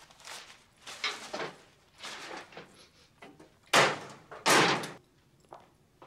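A crumpled paper bag rustling and a metal school locker door being handled, in a run of short noises. The two loudest come about four and four and a half seconds in.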